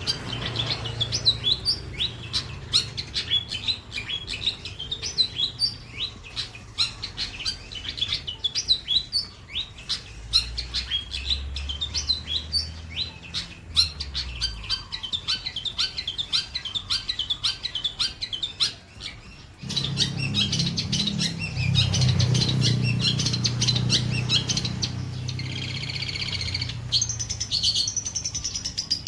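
Long-tailed shrike (cendet) singing a rapid, varied chirping song. A low rumble comes in about two-thirds of the way through.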